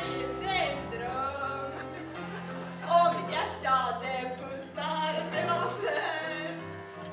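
A woman singing into a microphone over backing music with steady bass notes.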